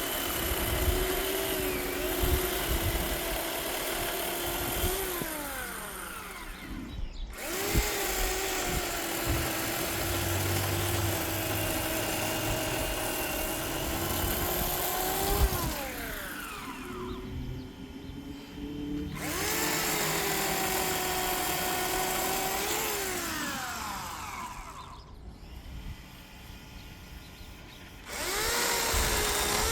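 Electric chainsaw motor running in four long bursts, each ending in a falling whine as it winds down and starting again with a rising whine; the longest pause comes near the end, before it spins up once more.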